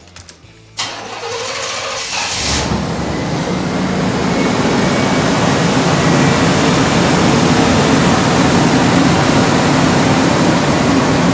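Buick Roadmaster V8 in a 1960 International Harvester swap being started: the starter cranks from about a second in, the engine catches at about two and a half seconds, then runs steadily and loud.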